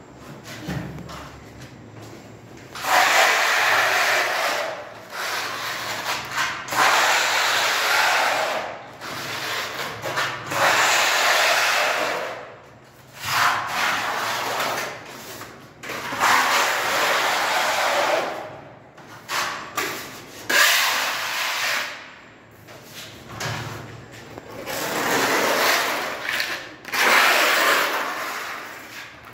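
Steel putty blade scraping and spreading wall putty across a plastered wall, a rough rubbing scrape in strokes lasting one to several seconds, with short pauses between strokes.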